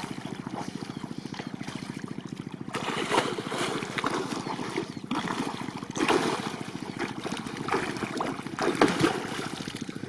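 Water splashing and churning as a person swims through shallow river water, in bursts that grow louder from about three seconds in and peak near six and nine seconds. Underneath is a steady, fast throb like a small boat engine running.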